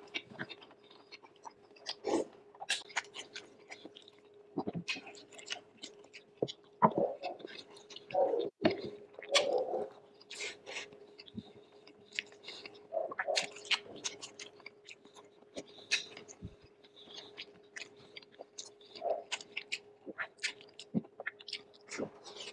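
Close-up chewing and mouth sounds of a person eating soft beef shank and marrow from bulalo soup: irregular wet smacks and clicks, with a faint steady hum underneath.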